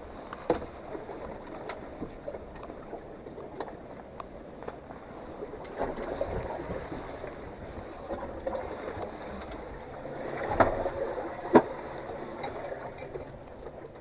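Water lapping and sloshing against a small boat at sea, with scattered knocks and clicks and one sharp knock about eleven and a half seconds in.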